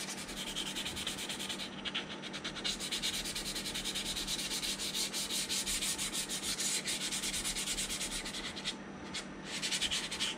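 Sandpaper rubbed rapidly back and forth over dried putty on the seams of a plastic model hull, taking off the excess thick filler. There are short breaks in the strokes about two seconds in and near the end.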